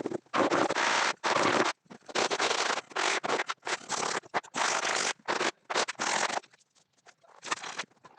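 Repeated rough scraping strokes, each about half a second long, coming roughly one to two a second and growing fainter and shorter near the end.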